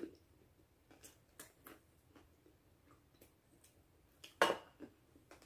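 People eating noodles: scattered faint clicks and smacks of chewing and forks, with one short, louder noise about four and a half seconds in.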